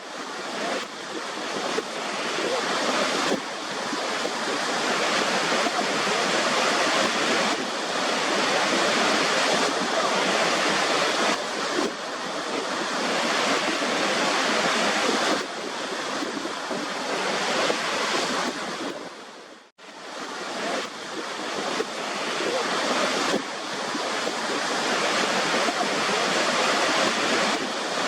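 Waterfall: the steady rush of falling water. About two-thirds of the way in it fades nearly to silence and swells back within a second or two.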